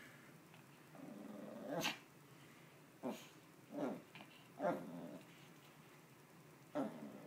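Small dog play-growling while tugging a plush toy: a longer growl about a second in, then short growls about every second.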